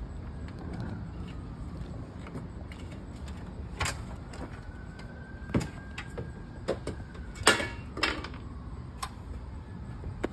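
Old caulking and a wooden shim being pulled and peeled off a door frame by hand: scattered sharp clicks, knocks and scrapes, the loudest a sharp crack about two-thirds through, over a steady low rumble.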